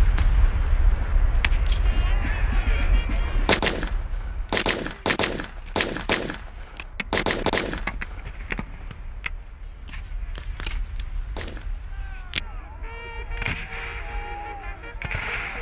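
Black-powder rifle-musket fire from reenactors' battle lines: a heavy low rumble fades over the first few seconds, then comes a scattered string of single sharp shots, about a dozen, at irregular intervals.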